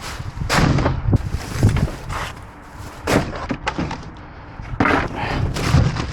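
Junk being shifted about inside a dumpster: irregular thumps, clanks and scraping, with sharp knocks about half a second, three seconds and five seconds in.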